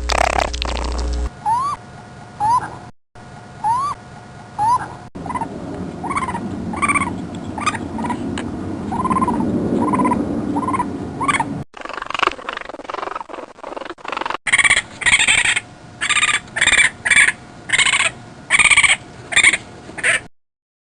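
A string of short animal calls, repeated in series. At first they are brief rising chirps, later steadier calls. Near the end come louder, higher repeated calls about once a second.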